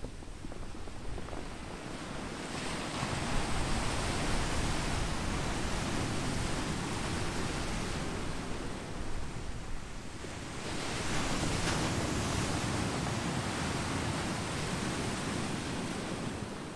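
Pacific Ocean surf breaking and washing over a beach of smooth volcanic boulders. One surge of surf builds about two and a half seconds in and a second about eleven seconds in.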